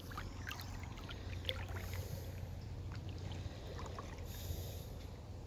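River water lapping and splashing lightly, with short ticks scattered through the first two seconds and again around four seconds, over a steady low hum.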